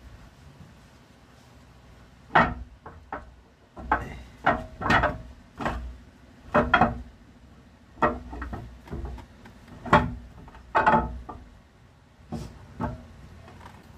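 A steel camshaft is slid by hand out of an Isuzu E120 diesel engine block. Its lobes and journals knock and scrape against the bearing bores in a string of irregular clunks, starting about two seconds in.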